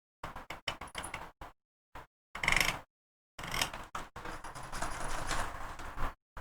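Small clicks, ticks and taps of hand tools being handled against a circuit board on a workbench, with a denser stretch of rustling, hissing noise in the second half.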